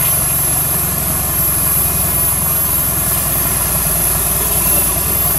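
Modified off-road 4x4's engine running steadily at low revs, a low even rumble.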